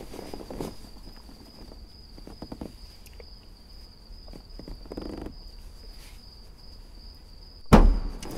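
A cricket's steady high chirring with soft rustling and kissing sounds, then a sudden loud thump near the end.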